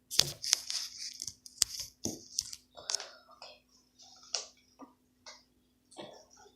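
Handling of slime and its plastic container: an irregular run of sharp clicks and crackles, dense for the first few seconds and thinning out toward the end.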